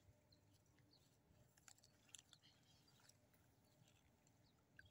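Near silence, with a few faint ticks.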